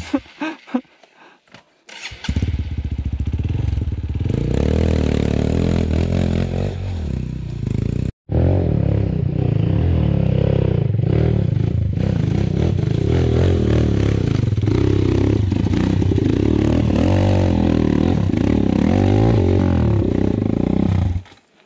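Small dirt-bike engine labouring up a steep, rutted trail climb, its revs wavering up and down under load. It comes in about two seconds in and cuts out briefly near eight seconds.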